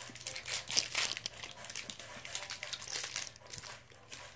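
Plastic candy wrappers crinkling as they are handled, in irregular crackles that thin out near the end.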